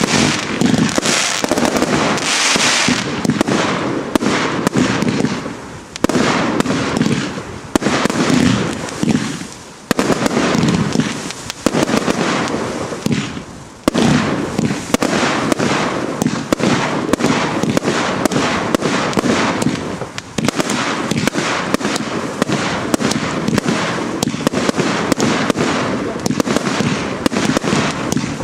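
Consumer New Year's fireworks going off in a continuous rapid barrage: launches and star bursts, many bangs a second, with crackling. The firing dips briefly a few times.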